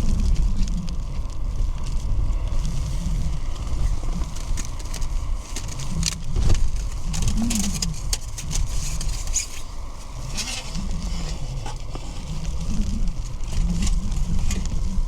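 Strong gusty wind rumbling and buffeting in surges, with rain drops ticking on tent fabric.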